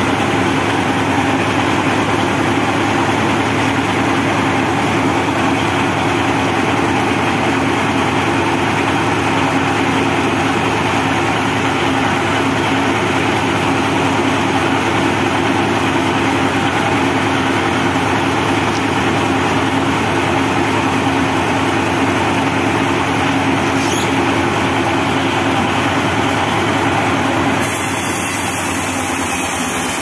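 Band sawmill running steadily with no wood in the cut: its engine-driven blade and drive idle with a constant hum. The level drops slightly near the end.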